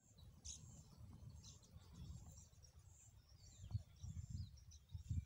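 Faint high bird chirps over an uneven low rumble on the microphone, with a few louder bumps of rumble near the end.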